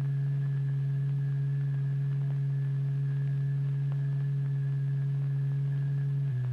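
A steady low electronic tone with a few faint overtones, the vibration frequency exciting the fluid drop. Near the end it steps down slightly in pitch and holds there.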